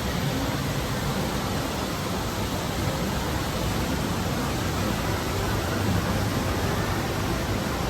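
Steady, even background din of an indoor amusement park, a dense hiss and hum with no distinct events.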